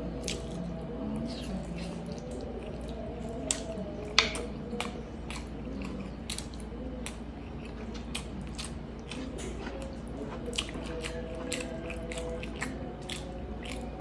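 Close-miked chewing of braised pork hock, with many irregular wet mouth clicks and smacks.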